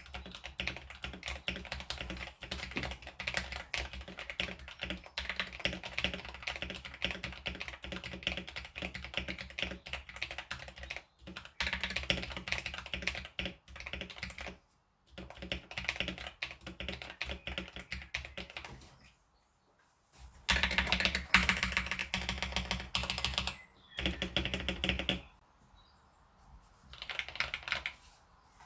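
Sound test of a modded Royal Kludge RK84 mechanical keyboard with Akko Cream Yellow V3 linear switches and stock keycaps: fast, dense keystrokes typed in bursts. There are short pauses, the longest about twenty seconds in, followed by a louder burst of typing.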